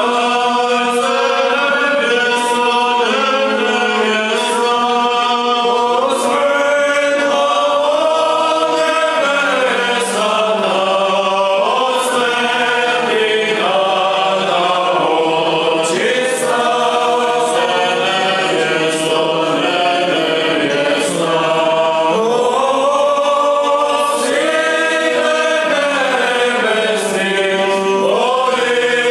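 Orthodox church choir chanting a hymn a cappella, the melody moving over a steady low held drone note.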